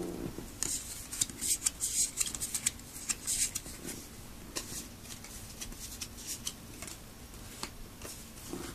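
Yu-Gi-Oh trading cards being handled and sorted by hand: a quick run of light, crisp clicks and rustles over the first three seconds or so, then sparser ones.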